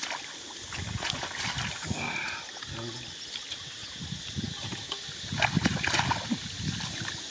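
Hands splashing and sloshing in shallow muddy water while grabbing fish by hand, with irregular wet splashes that come in bunches about a second in and again between five and six seconds in.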